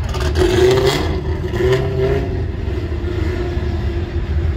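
A car engine running, its pitch swelling briefly about half a second in and again near two seconds, over a steady low rumble.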